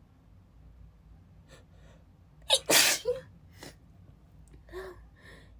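A woman's breathy, spraying sneeze about halfway through, let out unstifled while she is ill, with a quick sharp intake just before it and a brief voiced catch after. Quieter breaths and sniffs follow.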